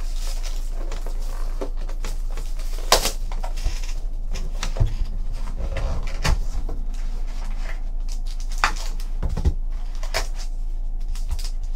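Plastic shrink wrap crinkling and crackling as it is stripped off a cardboard trading-card box, then the box's cardboard lid being flipped open, with a few light knocks of the box against the table.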